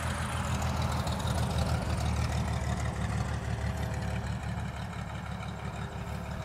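Distant light single-engine airplane on final approach, a faint steady engine drone under a strong low rumble.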